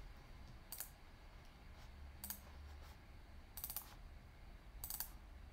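Faint computer mouse clicks: a few sharp single clicks spread out, with a quick pair in the middle.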